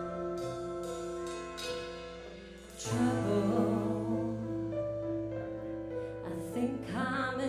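Stage keyboard playing slow, held chords in a harpsichord-like tone as a song's intro. A fuller chord with a low bass note comes in about three seconds in.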